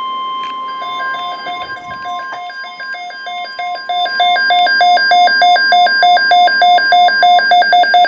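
Weather radio alert alarm: an electronic beeping that alternates rapidly between a low and a high tone, getting louder about four seconds in. It sounds over a steady single tone that weakens in the first moments, the 1050 Hz warning alarm tone of the NOAA Weather Radio broadcast that signals a watch or warning is about to be read.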